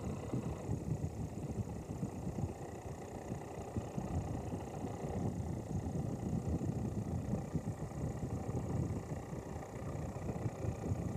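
Wind buffeting the camcorder microphone aboard a boat under way: a low, irregular, gusting rumble.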